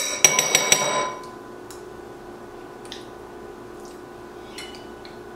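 A metal spoon clinks against glass about five or six times in quick succession in the first second, each strike ringing briefly, as sliced jalapeños are scooped from the jar. After that only a faint steady hum remains, with a few soft taps.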